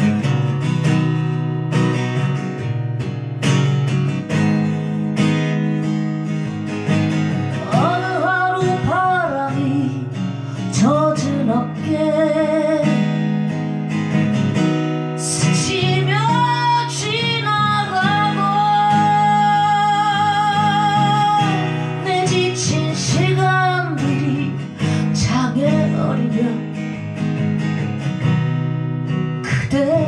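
Acoustic guitar strummed steadily throughout. From about eight seconds in, a woman's voice sings a melody over it, with one long note held with vibrato in the middle.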